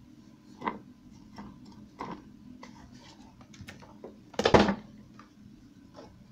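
Clicks and knocks of the vacuum cleaner's parts being handled, with one louder clatter about four and a half seconds in; the motor is not running.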